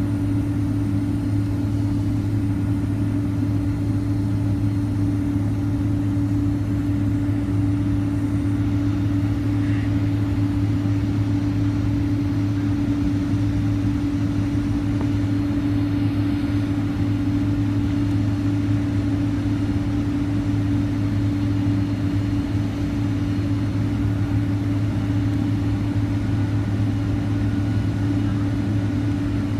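Steady cabin drone of a Boeing 767-300ER taxiing, its turbofan engines at low taxi power, heard from inside the cabin. A constant low hum with two strong steady tones, no spool-up.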